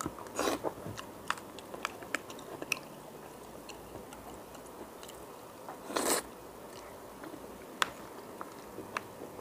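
Close-up mouth sounds of someone eating creamy spiral pasta: chewing with scattered wet clicks and smacks, and a louder, longer burst of noise about six seconds in.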